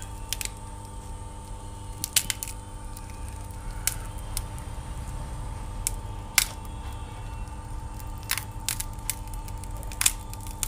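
Scattered sharp clicks and small cracks as a thin blade pries the cracked front glass off a Samsung Galaxy J2 (2016) display and the glass breaks away in pieces. A steady hum runs underneath.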